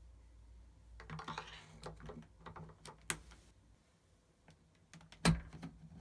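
A run of irregular clicks and light knocks, with one louder sharp knock about five seconds in.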